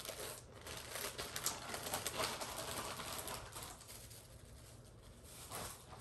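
Clear plastic garment bag rustling and crackling as it is opened and a cotton tank top is pulled out. The rustling is densest in the first three seconds or so, then dies down to faint handling noise.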